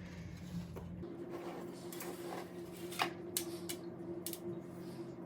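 A spoon scraping and clinking against a bowl and tin as sticky chocolate-coated Coco Pops are spooned in, with several sharp clicks over soft scraping.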